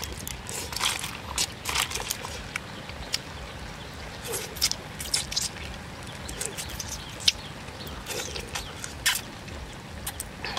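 Close-up eating sounds: wet slurps and lip smacks as cooked river snails are sucked out of their shells, with scattered sharp clicks at irregular intervals.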